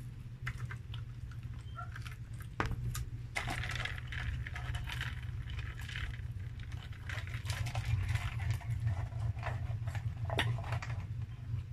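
Paper drink cups being handled and moved on a table: scattered light clicks, taps and rustles over a steady low hum.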